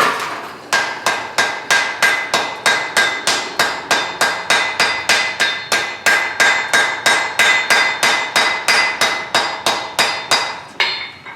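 Hand hammer striking hot steel on an anvil in a steady rhythm of about three blows a second, each blow ringing, as a forge-welded twist is drawn out to a taper at welding heat.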